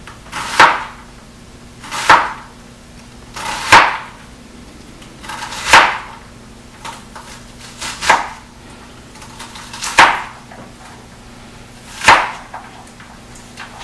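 Chef's knife chopping a pile of diced red onion on a plastic cutting board. There are seven slow, separate strokes about two seconds apart, with faint small taps between them.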